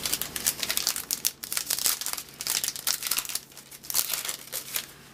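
Foil wrapper of a 2010 Upper Deck baseball card pack crinkling and being torn open by hand, in several crackly bouts that thin out near the end.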